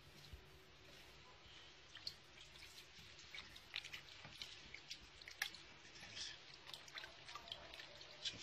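Faint, irregular wet clicks and squishes of hands pulling apart and kneading soft, rubbery red material in a plastic tub. The uploader claims the material is synthetic mutton. The clicks come scattered and grow more frequent from about two seconds in.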